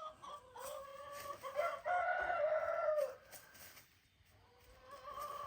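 Black leghorn chickens calling, with a short call at the start, one long drawn-out call about two seconds in, and another near the end.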